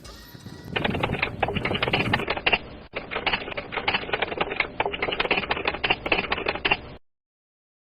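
Typewriter keys clacking in a fast, uneven run of strokes that stops abruptly about seven seconds in.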